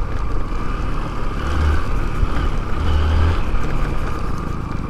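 Hero Xpulse 200's single-cylinder engine running at low speed on a rough dirt trail. Its low note swells twice near the middle.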